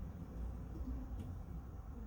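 Low, steady rumble of a car's interior, with a faint click about a second in.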